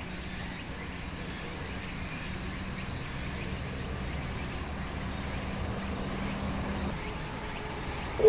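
Railway platform background: a steady low mechanical hum with a low steady tone that stops about seven seconds in.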